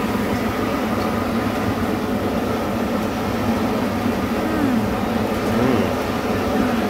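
Steady hum of street noise from traffic and machinery, even throughout, with no distinct events.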